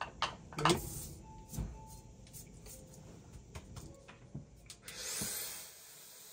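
A few light knocks and clicks as small items are handled. Then, about five seconds in, an OA Super Windy high-speed hair dryer switches on with a rising high whine as its motor spins up, and settles into a steady rush of air.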